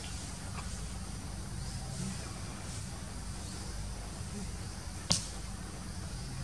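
Outdoor ambience: a steady low rumble with a few faint, high, rising chirps, and one sharp snap about five seconds in.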